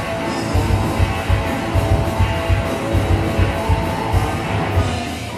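Rock music with guitar and a steady low beat.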